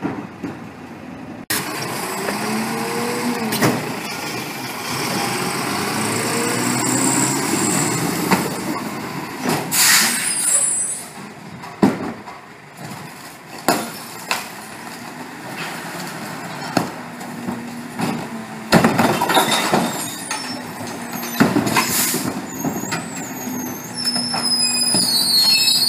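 CNG Mack/McNeilus rear-loader garbage truck running at the curb, its engine pitch rising and falling, while recycling bins are dumped into the hopper with a series of sharp bangs and clatters. High squealing near the end.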